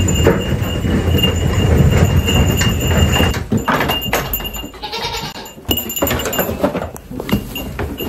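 Nigerian dwarf goat bleating once, about five seconds in, a single call of just under a second. Before it, low rumbling and knocking handling noise as the wooden barn door is opened.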